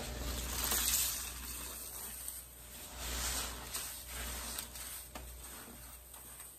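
Sudsy sponge being squeezed in a bucket of pine-cleaner water: foam sizzling and wet squelching in a few swells, the loudest about a second in and others around three and four seconds.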